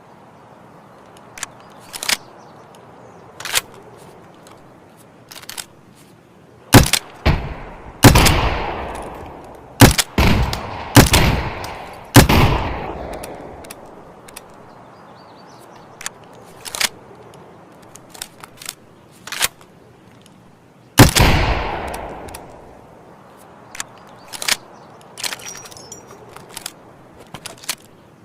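MGL grenade launcher sound effect: scattered sharp mechanical clicks, and heavy blasts with long fading rumbles. The blasts come in a cluster of about five from a quarter of the way in, and one more about three quarters through.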